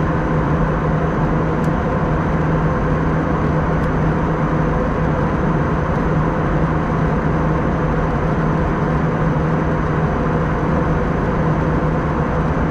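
Airbus A320 cabin noise: a loud, steady drone of engine and airflow with a few constant hums, unchanging throughout.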